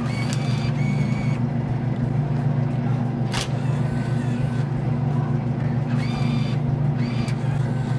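Vending machine bill acceptor whirring briefly as a dollar bill is fed in, near the start and again about six seconds in, its pitch stepping up as it pulls. A steady low hum from the machine runs underneath, with a single click between the two feeds.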